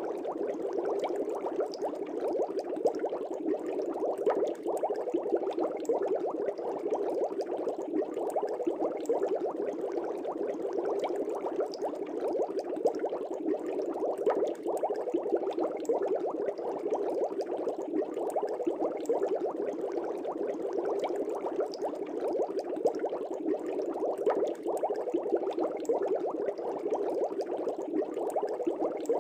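Aquarium air bubbles streaming up through water: a continuous, dense, steady bubbling.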